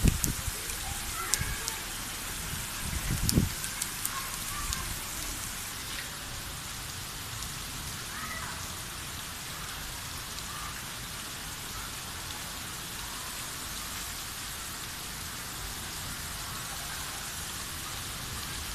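Heavy monsoon rain pouring steadily onto streets, roofs and trees, with a few low thumps in the first four seconds.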